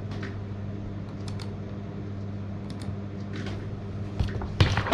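A computer keyboard clicking a few scattered times over a steady low hum, then a cluster of louder knocks near the end.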